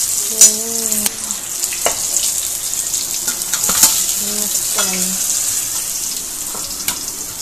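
Fish pieces sizzling in hot oil in a steel kadai, a steady hiss. A metal slotted spatula and spoon clink sharply against the pan several times as the pieces are turned and lifted out.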